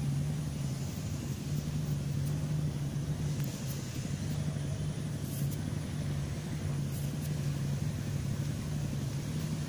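Steady low engine hum from an unseen motor running at a constant speed, level and slightly pulsing, over a faint even rumble.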